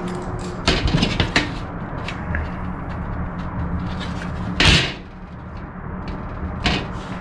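A thin aluminium wing rib being worked and handled on a workbench: a quick cluster of metal clicks about a second in, then one loud knock about four and a half seconds in as the rib is set down flat, and a lighter knock near the end.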